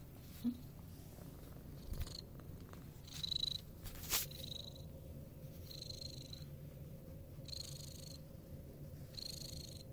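A black-and-white domestic cat purring steadily while being stroked, with a faint high whistle that recurs about every second and a half. A few brief knocks are heard, the loudest about half a second and four seconds in.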